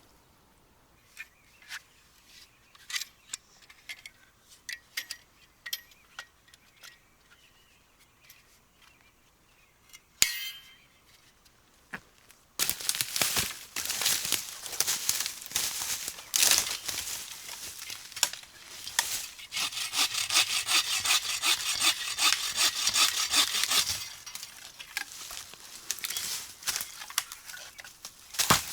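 Scattered light clicks and taps, then about twelve seconds in a hand saw starts cutting wood, with steady rasping strokes through to the end.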